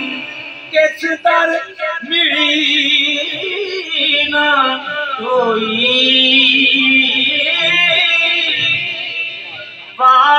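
A man singing a devotional Sufi poem into a handheld microphone, holding long notes that waver and glide in pitch. There are a few short, sharp sounds about a second in.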